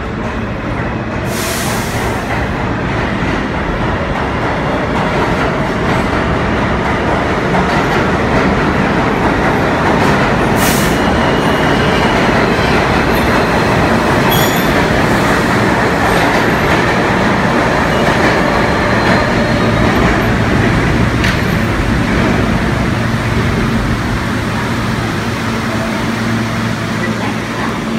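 New York City subway E train rumbling into an underground station and braking to a stop, the noise building over the first seconds. Brief high squeals come in once or twice. Near the end it settles to a steady low hum as the train stands at the platform with its doors open.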